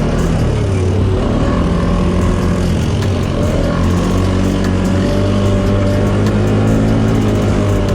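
ATV engines running as the quads are ridden along dirt trails, the engine note rising and falling a little.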